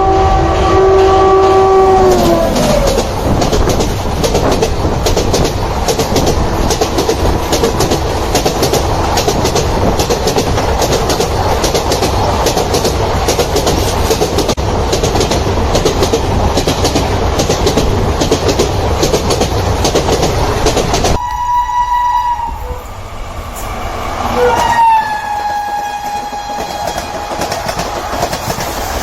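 Passing Indian Railways train: its horn blows a chord that drops in pitch as the train goes by, then its wheels rattle past in a fast clickety-clack over the rail joints for about twenty seconds. Near the end the sound cuts to another train horn blowing, dipping in pitch and then held steady.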